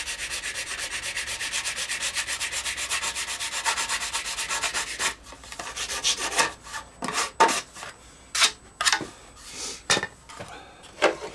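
Rapid, even back-and-forth sanding strokes on the edge of a plastic moulding, trimming it to fit, stopping about five seconds in. Scattered light clicks and knocks follow as the part is handled and offered up.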